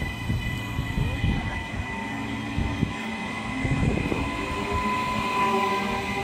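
Queensland Rail NGR electric multiple unit pulling out of the station, its carriages rolling past close by with a rumble and the whine of its electric traction equipment. Several tones climb in pitch as it picks up speed, and the wheels knock over the rail joints.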